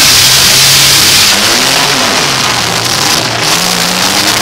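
Several demolition derby cars' engines revving hard together, pitches rising and falling, under a loud, dense rushing noise.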